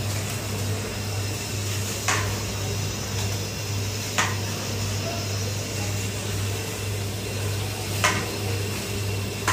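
A long metal spatula stirring masala in a large aluminium cooking pot, knocking sharply against the pot three times, about two, four and eight seconds in, over a steady low hum.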